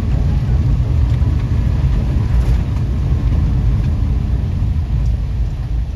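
Kei van driving along a wet road: steady low engine and road noise heard from inside the vehicle.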